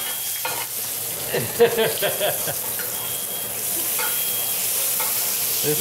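Butter sizzling in a cast iron skillet around a bone-in ribeye as it is spoon-basted. There is a sharp tap about a second and a half in, and the sizzle grows louder a little past halfway.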